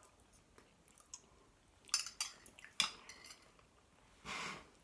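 Metal cutlery clinking against ceramic bowls as two people take a mouthful of spaghetti: a few sharp clinks about two to three seconds in. A short, soft breathy noise follows near the end.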